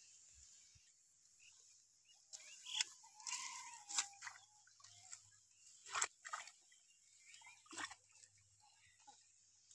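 Scattered soft rustles and splashes as a bamboo-framed net is pushed through water hyacinth and shallow pond water, with a brief wavering animal call about three seconds in.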